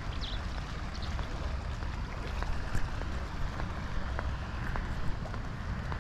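Outdoor ambience: a steady low rumble with a few scattered light ticks, and faint high bird chirps right at the start.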